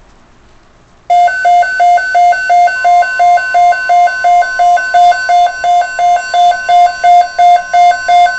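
Emergency alert attention tone: a loud beeping that alternates between a low and a high pitch about three times a second, starting about a second in. A fainter steady tone joins under it a couple of seconds later.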